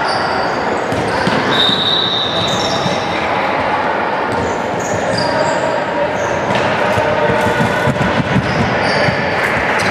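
Basketball game sounds echoing in a large sports hall: the ball bouncing, sneakers squeaking on the wooden court, and players calling out over a steady crowd din.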